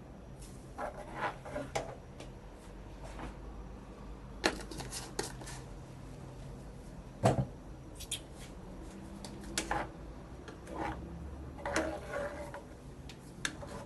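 Spoon knocking and scraping against a plastic jar and a saucepan as rolled oats are spooned into the pot and stirred: a string of scattered clicks and knocks, the loudest about seven seconds in.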